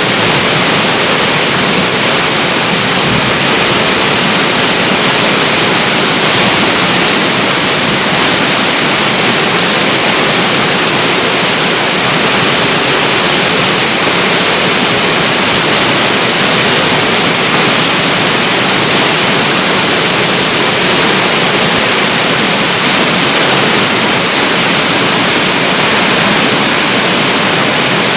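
Large artificial waterfall, water falling and splashing in a steady, loud rush.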